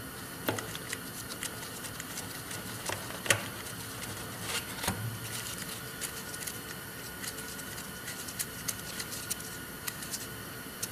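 Scattered small clicks and ticks, a few louder than the rest, as the coolant drain screw on a Honda CR500 engine is threaded back in by a gloved hand after draining the coolant. A steady faint hiss lies underneath.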